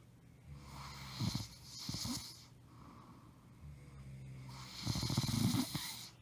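A woman snoring loudly in her sleep: two long snores about three seconds apart, each building up to a louder peak near its end.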